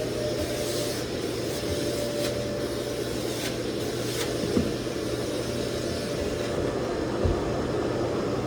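A machine running with a steady hum, with a few faint knocks.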